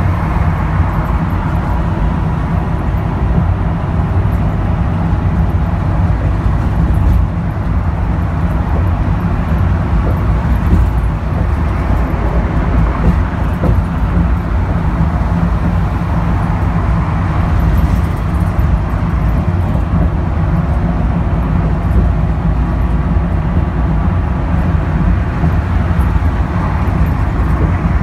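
Inside a 2013 NABI 42-BRT transit bus cruising at freeway speed: a steady low drone from its Cummins Westport ISL G natural-gas engine mixed with tyre and road noise, without a break.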